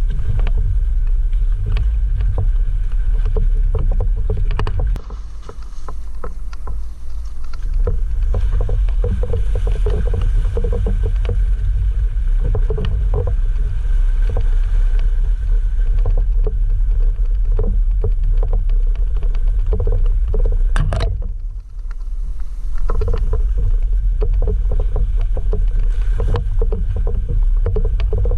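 Jeep Wrangler JL Rubicon driving a rough off-road trail: a steady low engine rumble, with frequent knocks and rattles over it. The rumble dips briefly about five seconds in and again near twenty-two seconds.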